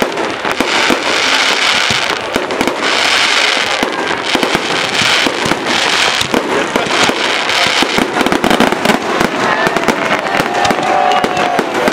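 Aerial fireworks shells bursting in a rapid, continuous barrage of booms and sharp cracks, with waves of crackling stars.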